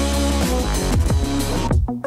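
Electronic background music with a heavy bass line and a steady drum beat.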